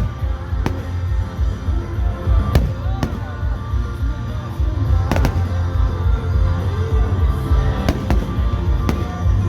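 Fireworks going off in a series of sharp bangs at irregular intervals, a second or more apart, over music playing and a constant low rumble.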